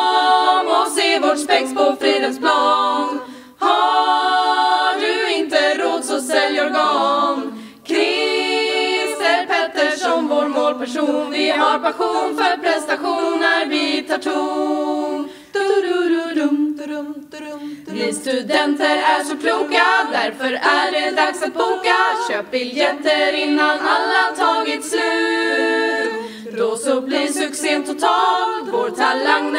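A group of women's voices singing together in harmony with no instrumental accompaniment, in phrases broken by brief pauses.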